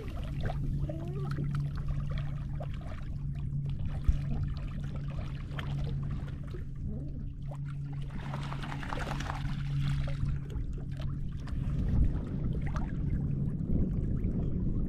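A steady low hum from the boat with water trickling and lapping around it. The hum fades out near the end.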